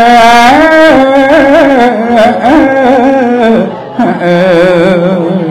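A single voice singing Khmer smot, a Buddhist chant, in long held notes with wavering ornaments. It breaks off briefly about four seconds in, then starts a lower phrase.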